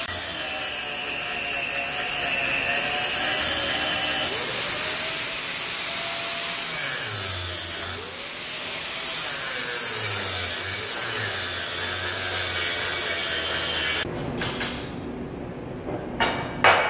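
Electric angle grinder grinding a weld bead down on steel plate, its whine dipping and rising as the disc bears on the metal. It stops about fourteen seconds in, followed by a few sharp knocks.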